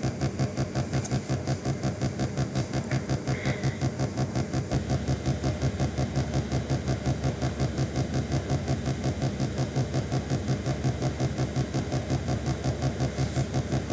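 A steady machine-like hum with a fast, even throb, over a background hiss.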